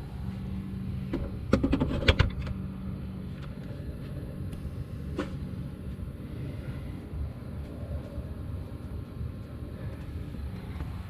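Steady low rumble, broken by a quick cluster of sharp knocks and rattles about one and a half to two seconds in and a single knock about five seconds in, like parts or tools being handled.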